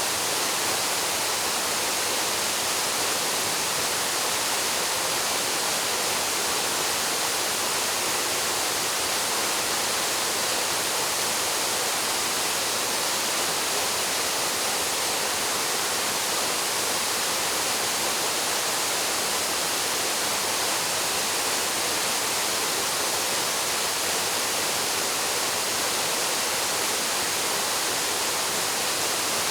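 Paraeso Falls, a mountain waterfall, plunging into its pool: a steady, unbroken rush of falling water that is strongest in the hiss.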